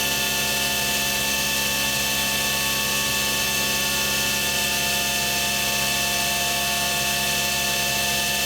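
Spindle of a Cincinnati Milacron Arrow 500 vertical machining center running steadily at 4,000 RPM: an even, multi-toned whine that holds its pitch.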